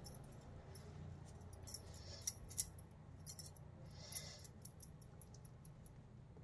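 Glass bangles clinking faintly on a working wrist, a scatter of light clicks, as greased hands press and roll crumbly sesame-and-peanut laddoo mixture in a steel bowl.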